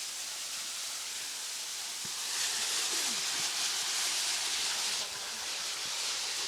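Steady rushing water of a river cascade: an even hiss that grows a little louder about two seconds in and eases back about five seconds in.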